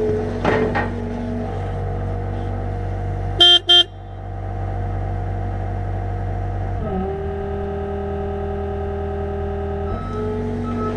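A vehicle engine running steadily, with two short, loud horn toots about three and a half seconds in. The engine note shifts about seven seconds in and again near the end.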